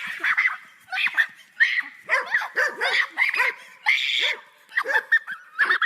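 A dog barking and yipping in quick, repeated short calls, a few of them louder and harsher.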